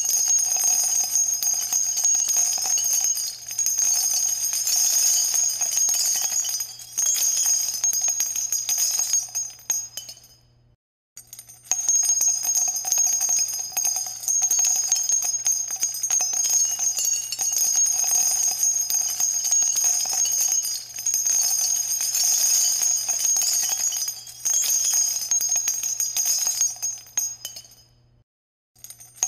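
Background music with bright, high-pitched tones, cutting out abruptly for about a second some ten seconds in and again near the end.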